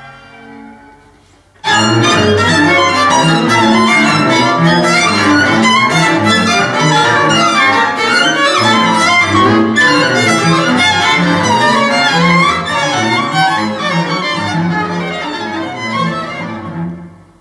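Recorded instrumental music played back from a laptop, loud, dense and fast-moving with many quick notes. It begins abruptly about two seconds in and fades out just before the end.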